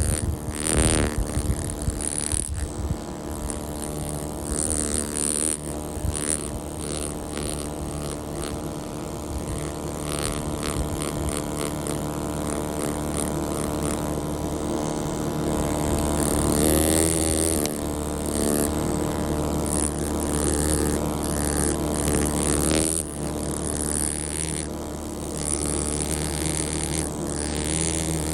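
Pneumatic air scribe buzzing steadily as it chips rock matrix away from an ammonite, with spells of sharper rattling against the stone.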